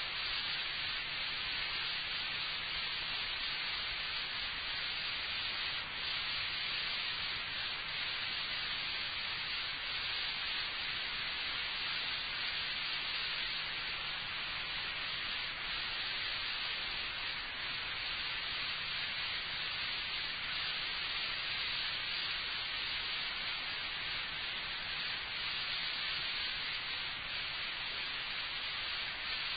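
Steady hiss of an old analog lecture recording, with a faint low hum beneath it.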